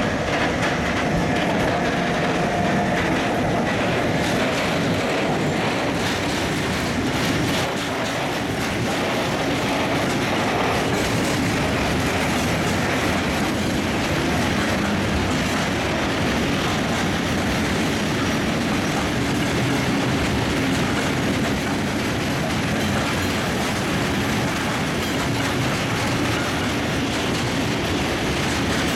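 A freight train of loaded fuel tank wagons rolling steadily past behind a Bombardier TRAXX diesel-electric locomotive pulling away, with the wheels clattering over the rail joints. A few steady tones come from the locomotive end in the first seconds.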